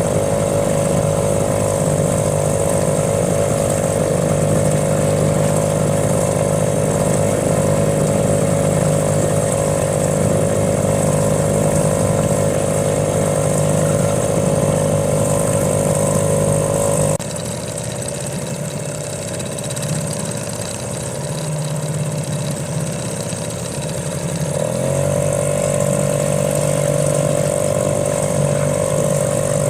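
Small boat motor running at a steady speed with a constant hum. A little past halfway it suddenly drops quieter and thinner, then a few seconds from the end it rises slightly in pitch and comes back to its earlier strength.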